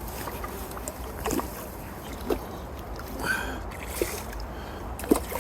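Water splashing and a few short knocks as a hooked carp is brought to the bank and into a landing net, over a steady wind rumble on the microphone. A brief high squeak comes about three seconds in.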